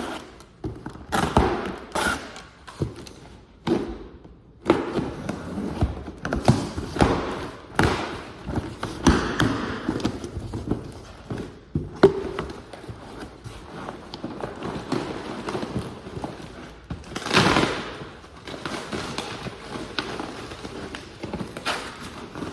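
A shipping box being opened and unpacked by hand: irregular thumps and taps, with bursts of scraping and rustling, the loudest of them about three-quarters of the way through.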